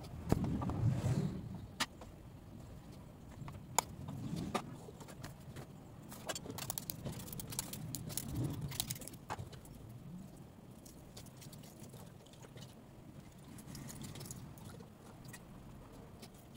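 Kitchen food-preparation handling sounds: scattered light clicks and taps of a utensil against a metal baking pan and of plastic food containers being moved, over a low, uneven background rumble.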